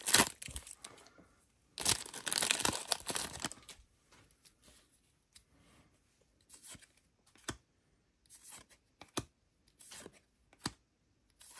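Foil trading-card pack wrapper being torn open and crinkled, with a denser burst of tearing about two seconds in. After that come scattered short clicks and snaps as the cards are slid off the stack one by one.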